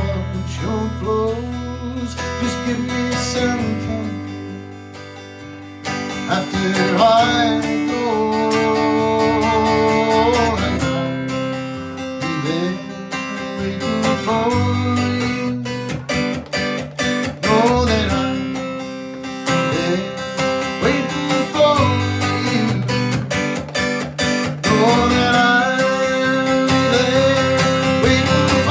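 Acoustic guitar music, strummed chords with a wavering melody line over them, dipping briefly quieter about five seconds in.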